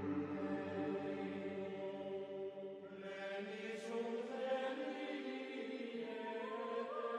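Slow chanting: long held notes that drift slowly in pitch, growing fuller about three seconds in.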